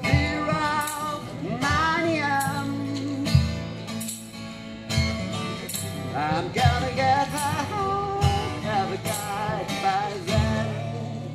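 A man singing to a strummed acoustic guitar, with a foot-pedal cajon thumping a low beat roughly every second and a half.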